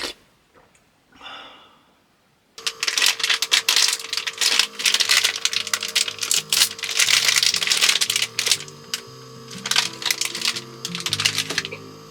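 Background music that starts abruptly about two and a half seconds in: a held note over shifting bass notes under a dense crackling, clicking texture. Before it there are two brief soft swishes.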